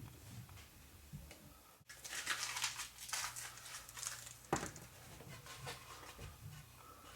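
Crinkling and rustling of material being handled, dense for a couple of seconds starting about two seconds in, then a single sharp click, then quieter rustles.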